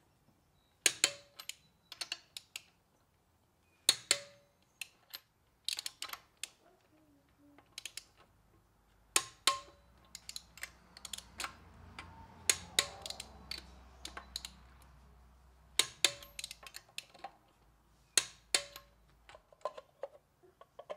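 Sharp metallic clicks and clinks in quick clusters every second or two, from a wrench and socket tightening a wheel's lug nuts; a few of the clicks ring briefly.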